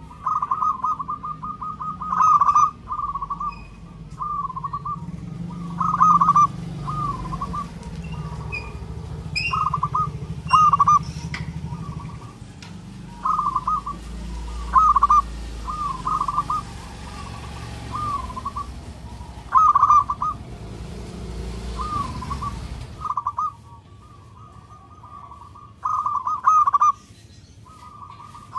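Zebra dove cooing its song: short, bubbling coo phrases repeated every second or two. A low rumble runs underneath and stops suddenly near the end.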